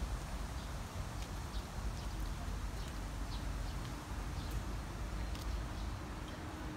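Footsteps on a brick-paved garden path, soft irregular taps about once a second, over a steady low rumble.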